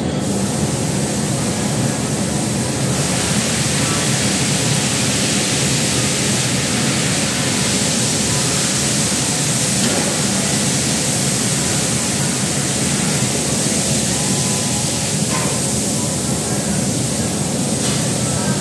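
Steady noise of a glassworks hot shop: furnace burners, extraction hoods and blowers running. A higher hiss grows louder about three seconds in.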